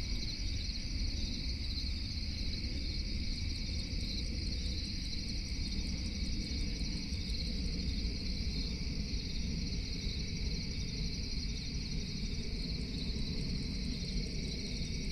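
Steady night chorus of crickets trilling continuously in high bands, over an unbroken low rumble of background noise.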